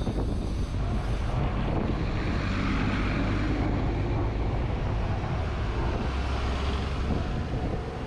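Street traffic with a city bus passing close by, its engine and tyres mixed with wind rumbling on the microphone.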